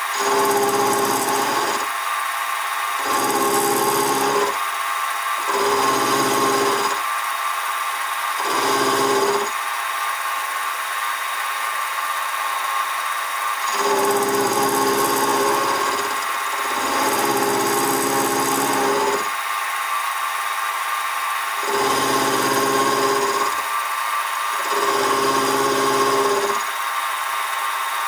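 Sieg SX2P mini mill running with a steady whine while its end mill cuts a radius on a crankshaft web in repeated passes. About nine bursts of cutting noise, each one to two and a half seconds long, alternate with stretches of the motor alone.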